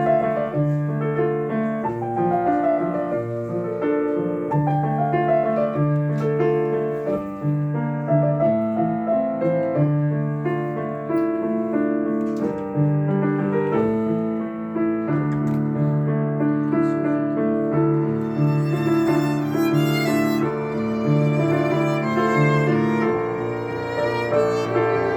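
Live instrumental music: bowed strings playing long, sustained melodic notes over piano accompaniment.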